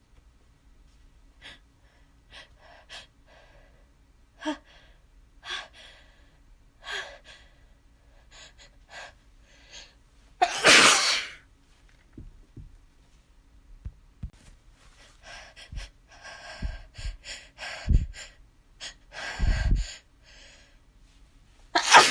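A person's sneezing fit. A string of short gasping breaths builds to one loud, open sneeze about halfway through. More heavy breaths and sniffs follow, and a second loud, voiced sneeze breaks out right at the end.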